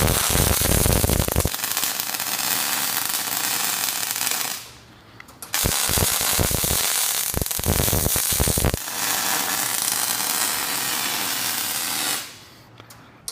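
Welding arc crackling and sputtering in two runs: the first stops about four and a half seconds in, the arc is struck again a second later and runs until near the end.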